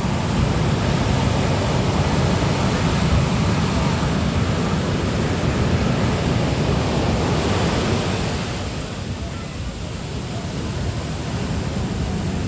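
Ocean surf at high tide: waves breaking and washing up a beach in a steady rushing wash that eases about eight seconds in, then builds again, with wind buffeting the microphone.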